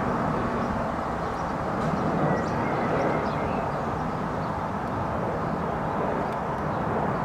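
Boeing 737 MAX 8 airliner passing overhead on approach, its CFM LEAP-1B engines a steady low rumble with little change in loudness.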